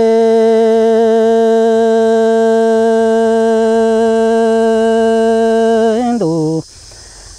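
A kwv txhiaj singer holds one long sung note with a slight waver. About six seconds in it slides down in pitch and breaks off, leaving a short pause before the next phrase.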